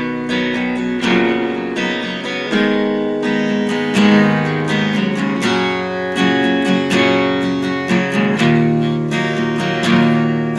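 Acoustic guitar strummed in a steady rhythm, playing an instrumental passage between sung verses of a song.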